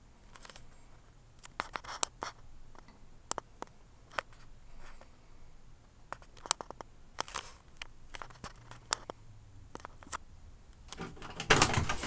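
A string of irregular sharp clicks and taps, with a louder scraping clatter near the end.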